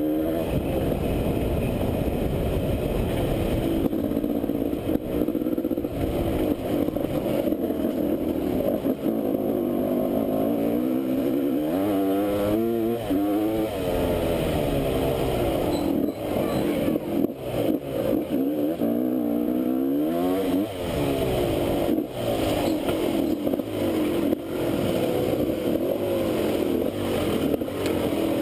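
Enduro motorcycle engine running along a dirt trail, its revs rising and falling with throttle and gear changes, strongest a little before halfway and again about two-thirds of the way in, over the rumble and rattle of the ride.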